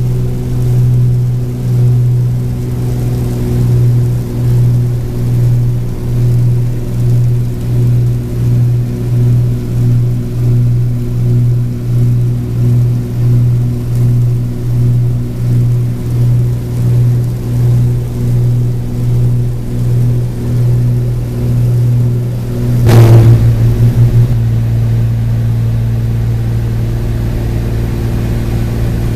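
Cabin drone of a twin-engine Cessna 402's piston engines and propellers in flight. It throbs slowly about once a second, the beat of the two propellers turning at slightly different speeds. Near the end a sharp knock sounds, and after it the throbbing stops and the drone goes on steady.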